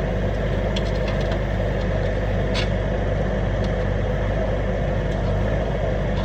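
Excavator engine running steadily, with a few short faint knocks in the first few seconds as the machine works.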